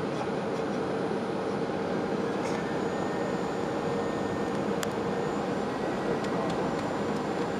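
Boeing airliner cabin noise on the landing approach: a steady rush of engine and airflow with a steady hum beneath it.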